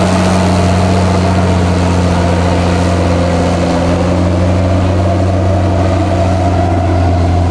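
Diesel engine of a Case IH Steiger 480 four-wheel-drive tractor running steadily without revving while the tractor creeps along.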